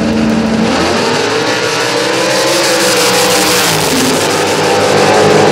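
Two drag-racing cars, one a Buick Regal, launching off the line and accelerating down the strip at full throttle, their engines loud and steady throughout.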